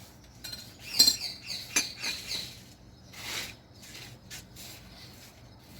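Short scraping and tapping sounds of a utensil spreading butter over rolled-out pastry dough, with a sharp knock about a second in and a longer scrape a little after three seconds in.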